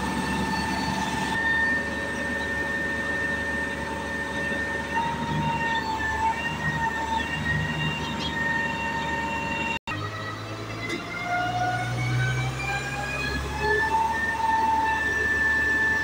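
Concrete pump truck running: a steady high whine over a low rumble. After a brief break about ten seconds in, the whine climbs in pitch and then levels off.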